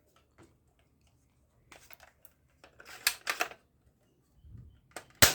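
Scattered small clicks and knocks from hard objects being handled: a cluster about three seconds in, and one sharp, loud click near the end.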